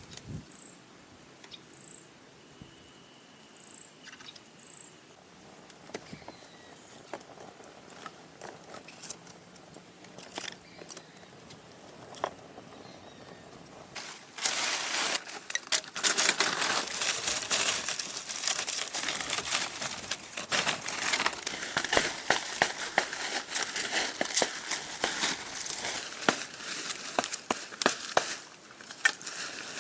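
A few short, high chirps over a quiet outdoor background, then about halfway through a dense crackling and rustling starts and carries on loudly, full of small sharp clicks.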